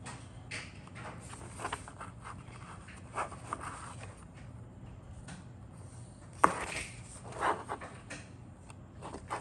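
Paper instruction booklet being handled, its pages rustling, with a page turned over about six and a half seconds in; a sharp snap of paper at that moment is the loudest sound.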